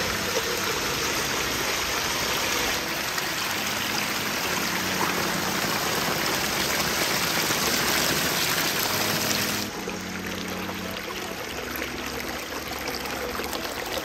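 Water of a backyard pondless waterfall spilling over rocks and running down a shallow stream in a steady rush. About ten seconds in it turns somewhat quieter.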